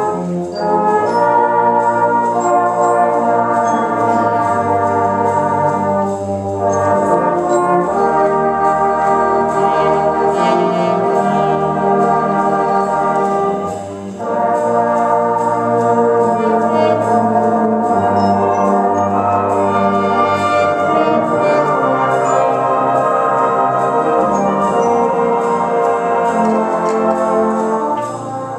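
Brass band playing live: full, sustained chords from cornets and other brass over a deep bass line, with a brief break between phrases about fourteen seconds in.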